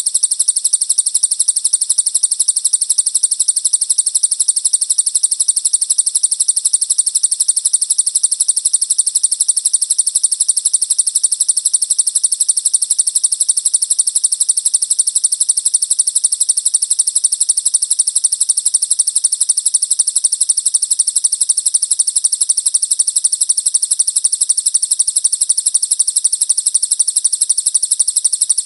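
Small songbird singing a continuous, rapid, very high-pitched trill that runs without pause.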